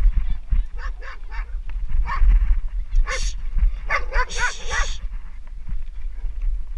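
A dog barking at the passing rider: single barks about a second apart, then a quick run of several barks around four seconds in. Under them runs a steady low rumble of wind on the microphone as the mountain bike descends the dirt track.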